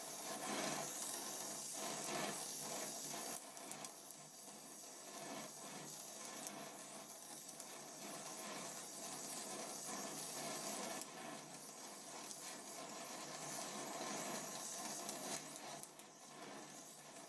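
Small oxy-fuel gas welding torch flame hissing steadily against a steel pipe joint, with crackling as sparks spit from the weld pool while filler wire is melted in.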